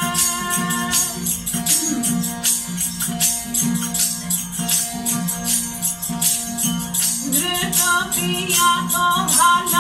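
Indian folk song performance with a steady stringed drone and a regular jingling, shaken percussion beat; voices come in singing the melody about seven seconds in.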